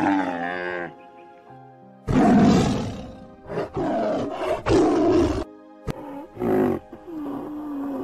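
A camel's short wavering groan, then a tiger roaring in several loud bursts from about two seconds in, over a steady background music track.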